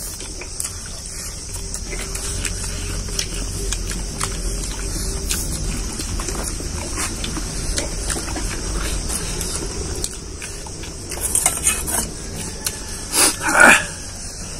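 People eating by hand from steel plates: fingers mixing and scraping rice against the metal, with chewing and small mouth clicks. A louder short noise comes near the end, over a steady high hiss.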